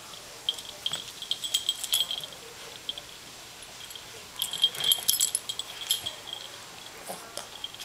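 Metal tag on a small dog's collar jingling in irregular clusters as the dog tugs and shakes its head with a t-shirt, busiest about five seconds in.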